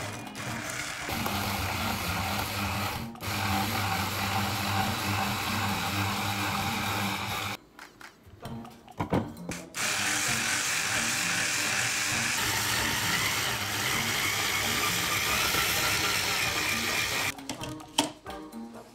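Electric hand blender motor driving a spiralizer attachment, cutting pumpkin into spirals: a steady whirring run of about seven seconds, a pause of about two seconds, then a second run of about seven seconds. Near the end come a few sharp plastic clicks as the attachment is taken apart.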